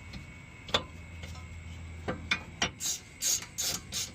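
Metal-on-metal clinks of tools and brake parts, then near the end four quick strokes of a ratchet wrench, running a bolt in to snug up the caliper bracket.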